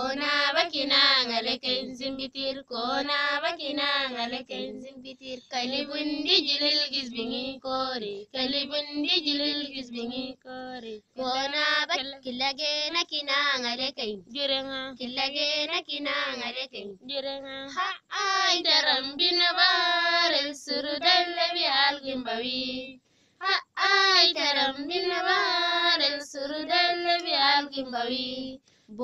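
A single high-pitched voice singing a song in long held, wavering phrases, with short breaks between phrases.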